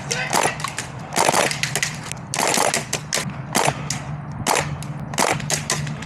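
Airsoft gunfire: quick bursts of sharp cracks and single shots, coming in clusters about every second.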